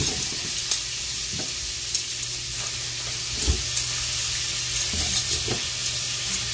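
Stainless steel spoons and forks being unpacked and handled: scattered sharp clicks of metal and packaging over a steady hiss.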